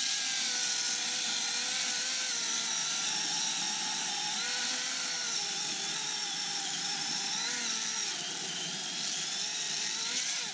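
Milwaukee M18 FUEL 16-inch brushless battery chainsaw running at full speed as it cuts through an Austrian pine log: a steady high electric-motor whine over the rasp of the chain. The pitch dips slightly a few times as the chain bites under load.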